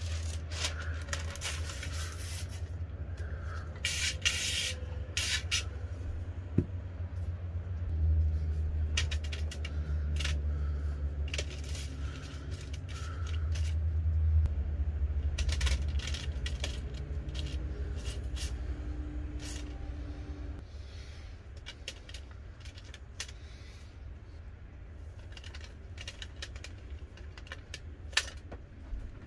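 Aluminium foil and parchment paper crinkling and rustling as they are handled and smoothed, with scattered scrapes and light taps as vegetable pieces are set down. A steady low hum runs underneath, louder for a few seconds in the middle and fainter after about two-thirds of the way through.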